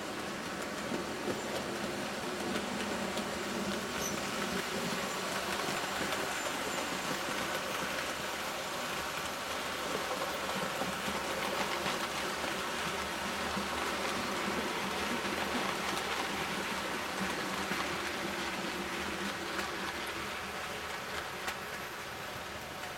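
OO gauge model trains running on the track: a steady rumble of wheels on rail and electric motor hum, a little louder in the middle as a locomotive passes close by and easing off near the end.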